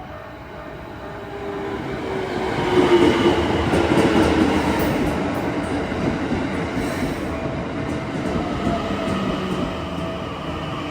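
Keikyu electric commuter train running past at close range, growing loud about two seconds in and staying loud, with wheel clatter on the rails.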